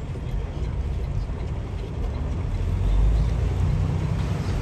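Semi-truck's diesel engine running, a low steady rumble heard inside the cab that swells a little about three seconds in, with heavy rain hissing and pattering on the windshield.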